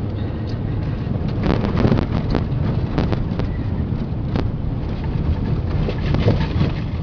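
Car driving on a rough dirt road, heard from inside the cabin: a steady low rumble of engine and tyres, with several knocks and rattles as the car bounces over the ruts.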